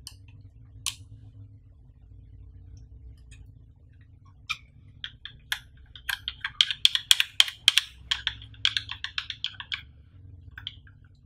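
Small hard plastic clicks and taps as fingers work at the black plastic handle unit of a Sony HXR-MC88 camcorder: a single click about a second in, then a quick run of clicks, several a second, densest in the middle. A faint steady low hum lies underneath.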